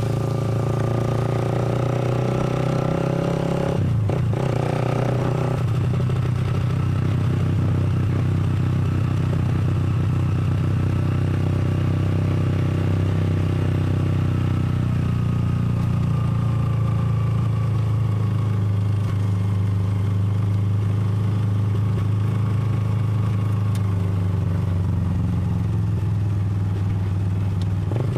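The motorcycle engine of a Philippine tricycle running steadily under way, with a short break in its note about four seconds in.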